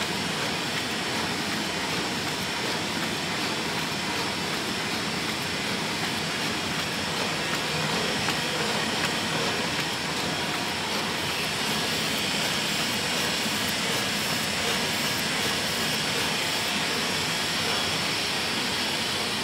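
Roland Rekord four-colour sheet-fed offset press running, a steady, unbroken mechanical noise.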